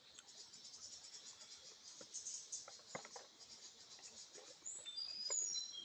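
Insects chirping in a fast, evenly pulsing chorus, with a few short, high bird whistles near the end. A few faint clicks come around the middle.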